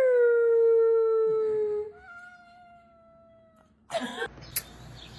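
A loud, long howl that starts high, drops and holds a steady note for about two seconds, answered by a cat's quieter, higher drawn-out yowl. Near the end it cuts to rustling and a sharp click.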